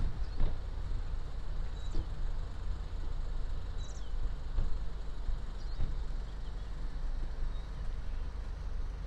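Outdoor background: a steady low rumble, with a few faint high chirps about two, four and six seconds in.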